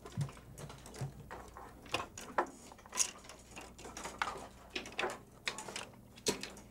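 Plastic weights being hung on the pegs of a plastic math balance, making about a dozen sharp, irregular clicks and clacks.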